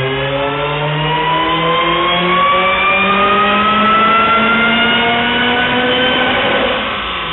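Acura RSX's four-cylinder engine at full throttle on a chassis dyno, its revs climbing steadily in one long pull. Near the end the pull finishes and the engine note drops away.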